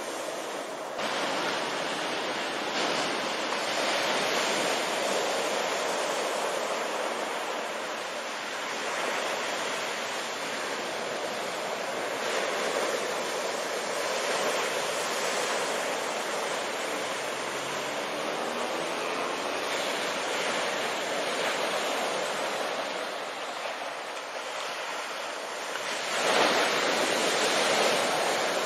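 Surf from a rough sea breaking on a beach: a continuous rush of water that swells and eases with each wave, with the loudest wave crashing near the end.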